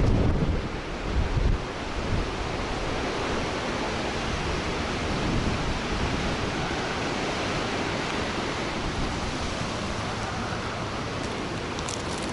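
Strong, gusty storm wind blowing hard, buffeting the microphone with low rumbles that are heaviest in the first second and a half. A few brief clicks sound near the end.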